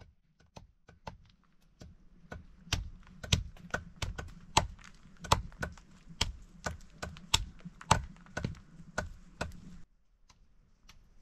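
A large knife chopping through bundles of vine rope, a quick, uneven run of sharp chops about two to three a second that stops abruptly near the end.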